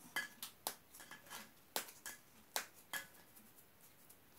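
Crisp puffed-rice snack being snapped and crumbled into small pieces by hand: a string of sharp, irregular cracks that stop about three seconds in.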